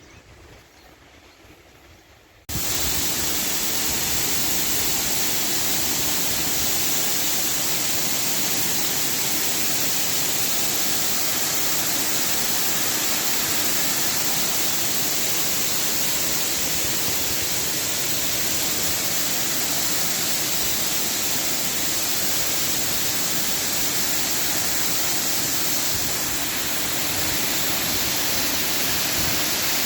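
Steady rushing of a waterfall, starting abruptly about two and a half seconds in after a quiet moment.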